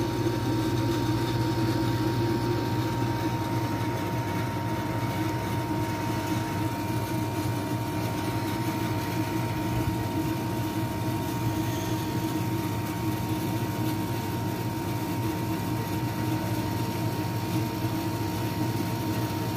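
Split-type air conditioner's outdoor unit running steadily, its compressor and condenser fan giving an even hum with a thin, constant whine above it. The system is running while being recharged with refrigerant to cure a no-cooling fault.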